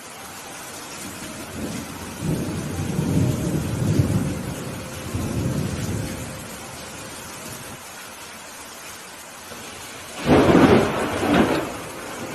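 Steady rain with thunder. A low rumble builds and rolls for several seconds, then about ten seconds in a sudden sharp thunderclap cracks, followed by a second burst.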